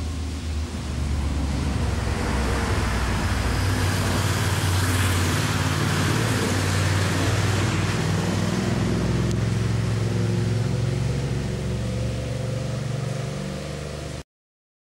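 A motor vehicle's engine running steadily, swelling to a peak about five seconds in, then cutting off abruptly near the end.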